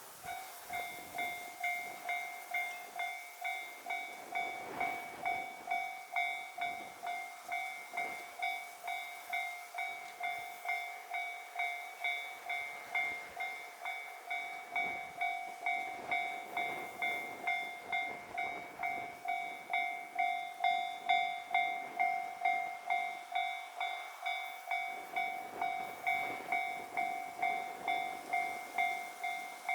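Japanese railway level-crossing warning bell ringing, a steady electronic ding repeated about one and a half times a second as the crossing is closed for an approaching train.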